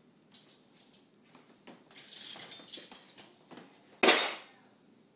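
Metal silverware clinking and rattling as it is handled, then one loud clatter about four seconds in as cutlery is dropped into a kitchen cutlery drawer, ringing briefly.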